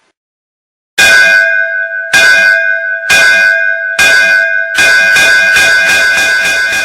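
Automatic school bell system sounding a loud bell: after about a second of silence come four separate strokes about a second apart, then a fast continuous ringing, marking the start of the interval (recess).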